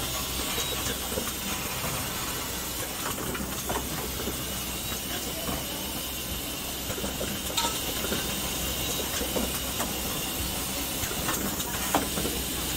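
Automated rotor assembly machinery running: a steady hissing din over a low hum, with a few sharp mechanical clicks scattered through.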